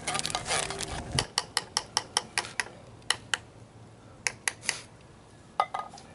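Light clinks of a spoon against a cooking vessel while stirring the food: a quick run at about five a second, then a few scattered clinks.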